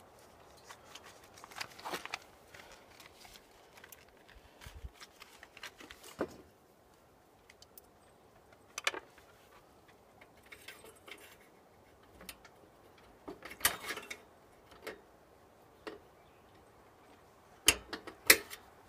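Small metal Allen wrenches clinking and rattling in the hand as one size after another is tried on a furnace blower fan's grub screw. The clicks come irregularly, with two sharper knocks near the end.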